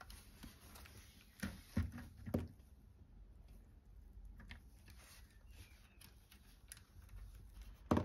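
Plastic knocks and clicks as a LEGO brick car model is handled and turned over by hand. A few sharper knocks come in a cluster a second and a half to two and a half seconds in, with lighter clicks after and another knock near the end.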